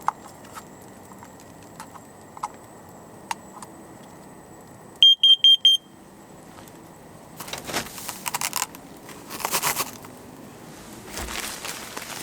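Carbon monoxide detector sounding four short, high beeps in quick succession, followed by bursts of rustling handling noise.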